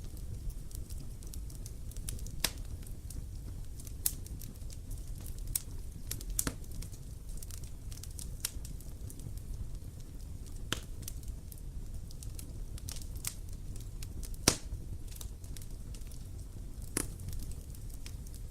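Campfire burning: a steady low rumble of the flames with irregular sharp pops and crackles of burning wood, the loudest pop about fourteen seconds in.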